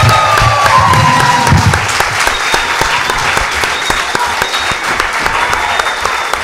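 A crowd applauding, dense clapping throughout, with voices calling out over it during the first two seconds; the clapping eases off slightly near the end.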